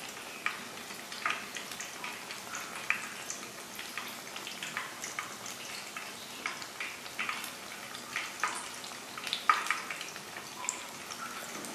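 Dhuska, rice and chana dal batter fritters, deep-frying in hot oil in a kadai: a steady sizzle with frequent sharp crackles and pops, a louder cluster of pops about nine and a half seconds in.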